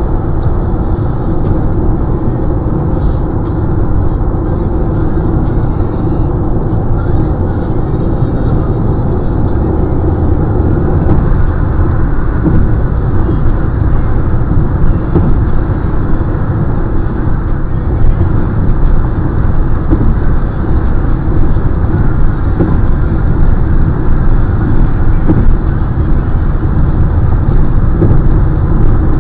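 Steady road noise of a car at highway speed heard from inside the cabin: a low drone of tyres and engine. It grows a little louder and rougher about a third of the way in as the car runs onto a bridge deck.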